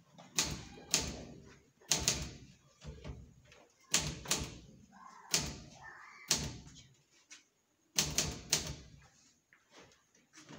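A series of sharp, loud knocks or bangs, about ten over ten seconds, irregularly spaced and some in quick pairs, each followed by a short ringing tail.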